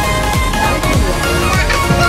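Electronic dance music with a steady beat of low, falling bass notes under a synth melody.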